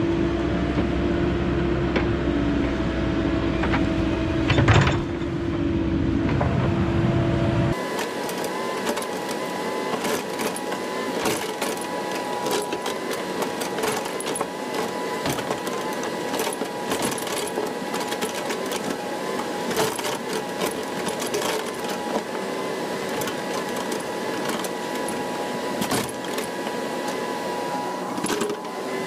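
Mini excavator engine running steadily, with one louder knock about five seconds in. About eight seconds in the sound changes abruptly to a thinner, higher hum with a steady stream of small clicks and knocks.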